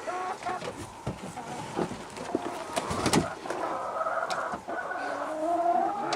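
Chickens clucking and calling, with a longer drawn-out call near the end; a few sharp clicks or knocks sound in the middle.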